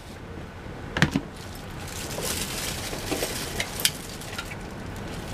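Light kitchen handling sounds: two short sharp clicks, about a second in and just before four seconds, with a few fainter ticks and a soft rustle in between.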